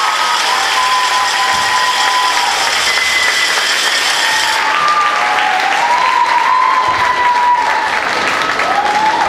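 Audience in a large hall applauding steadily, with drawn-out high-pitched cheers and shouts carrying over the clapping.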